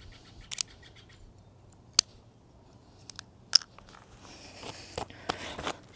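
A few sharp snips and clicks from scissors cutting cord, spread over the first few seconds, then soft rustling as the cord is handled.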